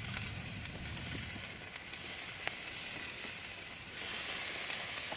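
Chicken pieces sizzling on a hot grill while being basted with a honey-based sauce: a steady hiss with a few small pops, getting a little louder about four seconds in.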